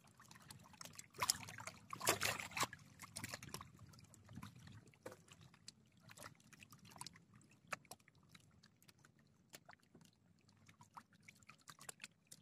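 Faint handling noise of fishing tackle, scattered rustles and small clicks as the hook is baited with moss, busiest between about one and three and a half seconds in, over soft water sounds.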